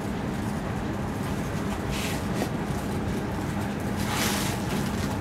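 A steady low background rumble with a constant hum, broken twice by short rustles of sari fabric being swept and spread out, about two seconds and about four seconds in.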